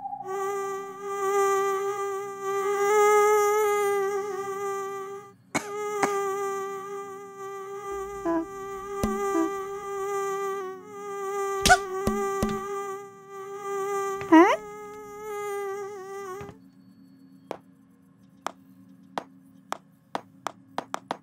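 Cartoon sound effect: a steady, buzzing hum at one pitch, with a brief break about five seconds in and a quick upward swoop near the middle. It stops a few seconds before the end, and a run of short, light ticks follows.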